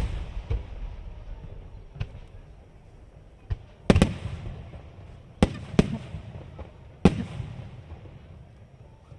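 Aerial firework shells bursting, with sharp bangs a second or two apart, the loudest about four seconds in. Each bang is followed by a low echoing tail.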